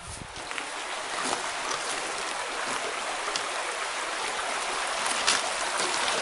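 Shallow stream rippling over stones: a steady rushing babble of water. It grows louder over the first second, then holds steady.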